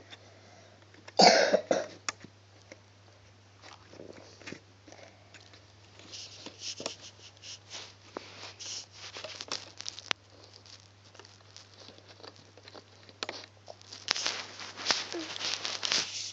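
A person coughs once, loudly, about a second in. Then come scattered small clicks and rustles of fingers working rubber loom bands on a plastic peg loom, over a steady low hum.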